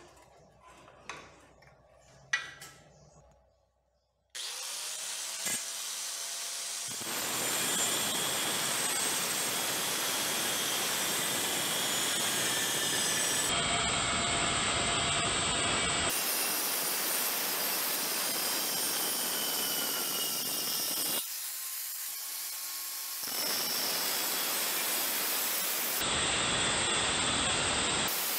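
Angle grinder with an abrasive disc cutting into a steel rectangular tube held in a vise: a steady, loud grinding rasp over the motor's whine, broken into several stretches by edits. In the first few seconds there are a few metal knocks as the tube is set in the vise.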